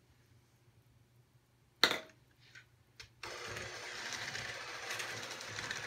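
A single sharp knock, then a little after three seconds in an electric hand mixer switches on and runs steadily, its beaters working cream cheese and sugar in a plastic bowl.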